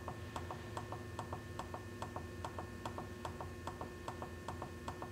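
Temperature-up push button on a Genesis 1588 incubator controller clicked over and over in a fast, even rhythm, about five clicks a second, stepping the temperature calibration up. A faint steady hum runs underneath.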